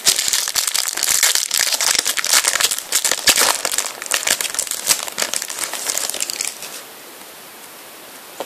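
Foil wrapper of a Panini FIFA 365 trading-card packet crinkling as it is handled and opened: dense, crackly rustling that stops about two-thirds of the way through.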